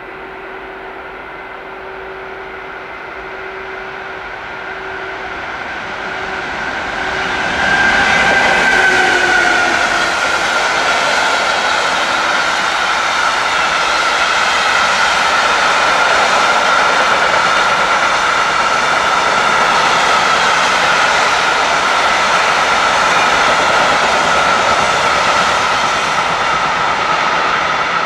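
Electric freight train passing close by: its sound grows as the locomotive approaches, and about eight seconds in its tone drops in pitch as it goes past. A long rake of covered hopper wagons follows with a steady, loud rolling noise of wheels on rail and a high ringing tone.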